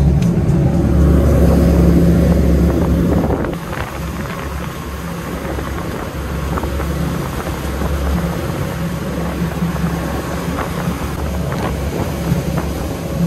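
Mercury outboard motors running steadily at high-speed trolling pace, a deep even engine hum mixed with wind on the microphone and rushing wake water. The level drops a little about three and a half seconds in.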